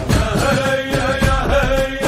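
Instrumental passage of an Arabic song between sung verses: a held melody line over a steady beat.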